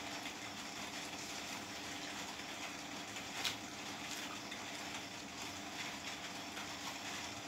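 Faint sounds of eating by hand: rice and chicken curry being mixed on a plate, with small clicks and one sharper click about halfway, as fingers go into a steel curry bowl. Underneath is a steady mechanical hum.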